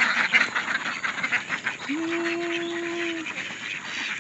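A flock of laying ducks (itik) quacking in a dense chatter as they hurry out of their pen. A single steady low note, held for about a second, sounds midway through.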